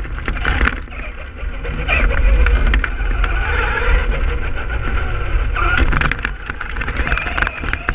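Traxxas Stampede RC truck driving fast over gravel with a GoPro on its front: the motor's whine rises and falls with the throttle over a heavy low rumble, and gravel clicks and pings off the chassis.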